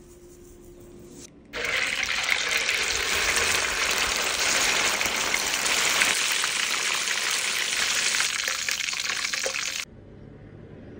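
Fish pieces deep-frying in a wok of hot oil: a loud, steady sizzle that starts suddenly about a second and a half in and cuts off abruptly about a second before the end.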